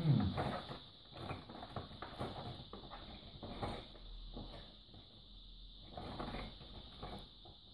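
Clear plastic blister packs of Christmas decorations being handled: irregular crinkles and clicks of thin plastic, with a soft knock as a pack is set down on the table at the start.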